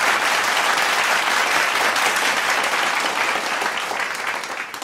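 Applause: a dense, steady clatter of many hands clapping that fades out near the end.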